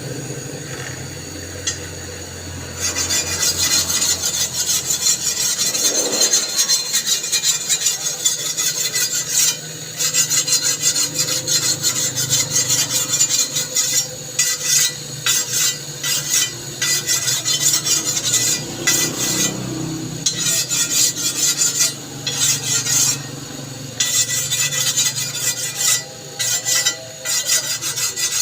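A file rasping on a steel blade in fast back-and-forth strokes, with short pauses between runs, starting about three seconds in, as a toka fodder-cutter blade is filed sharp. A low hum comes before the filing starts.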